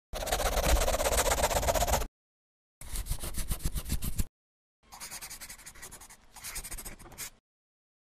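A pen scratching across paper in three bouts of quick drawing strokes, the sketching sound of a hand-drawn animation. The first bout is the loudest and lasts about two seconds; the last is softer.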